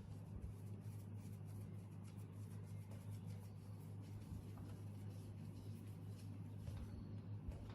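A steady low hum with many faint small clicks and scratches over it.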